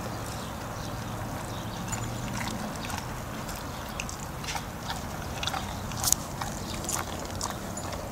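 American English Coonhound chewing a treat, with scattered small crunches and clicks, a sharper one about six seconds in, over a faint steady hum.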